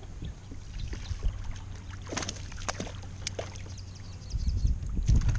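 Water splashing and lapping around a kayak, with a few sharp splashes or knocks in the middle. Wind rumble on the microphone swells near the end.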